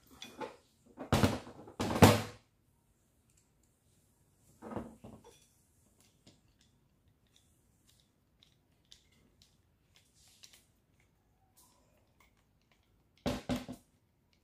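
Knocks and scrapes of a screwdriver and a plastic electric sander housing being handled on a workbench during reassembly: two loud clunks about one and two seconds in, a softer one near five seconds, faint ticks, then a quick double knock near the end.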